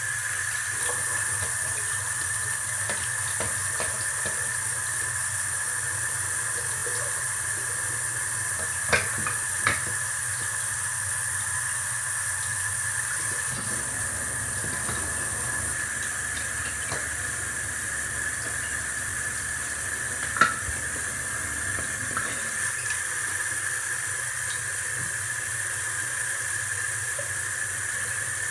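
Tap water running steadily into a sink while slime-kit tools are washed, with a few sharp clinks of items knocking together about a third of the way in and again past the middle.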